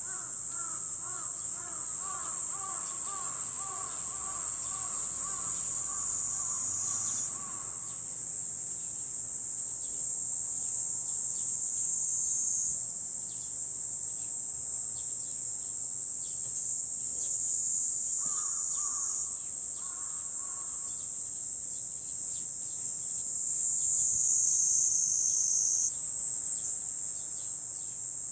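A steady, high-pitched chorus of summer insects drones throughout. A bird calls in short, repeated, wavering notes for the first several seconds, and again briefly about two-thirds of the way through.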